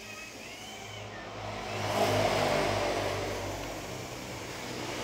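Engine of a passing motor vehicle. It grows louder to a peak about two seconds in, then fades.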